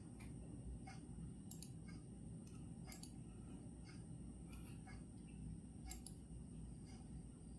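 Clock ticking about twice a second over a steady low background noise, with a faint high steady tone.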